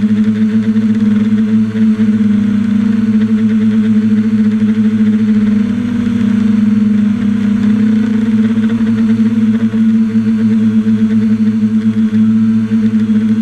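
Multirotor drone's motors and propellers humming steadily in flight, heard from the camera on the drone itself. The pitch wavers and rises slightly around the middle as the motors adjust.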